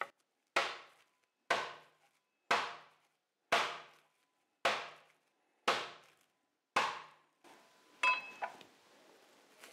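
A flat steel smash burger smasher pounding a slice of beef under cling film on a cutting board: seven heavy strikes about a second apart, each ringing out briefly, then a lighter clatter near the end.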